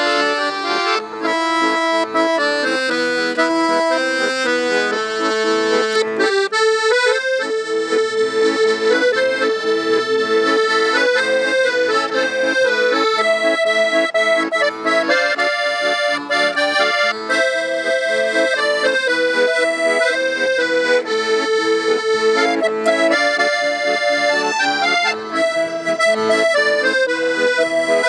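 Accordion playing an instrumental tune, a melody moving over held chords, with a brief break in the phrase about six and a half seconds in.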